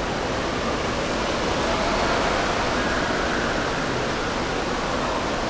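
Steady rushing-water din of an indoor water park's wave pool area: an even wash of splashing and falling water, echoing under the hall's roof.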